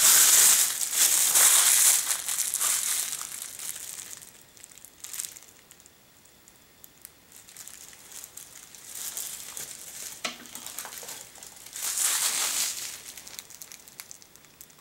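Clear plastic wrapping crinkling as it is handled and pulled off a stainless steel pour-over coffee dripper. It is loud for the first few seconds, then comes back in two shorter, quieter bursts later on.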